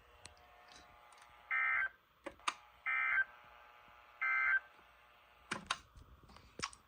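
Emergency alert weather radio sending three short, identical buzzy data bursts, evenly spaced: the EAS end-of-message code that closes the tornado watch broadcast. A few short clicks follow near the end.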